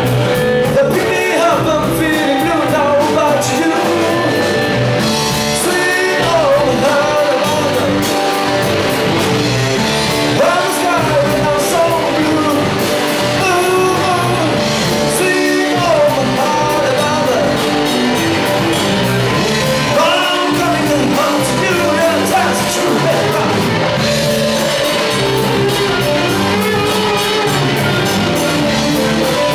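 Live rock band playing through a small amplifier: a man singing lead over electric guitars and a drum kit with a steady beat.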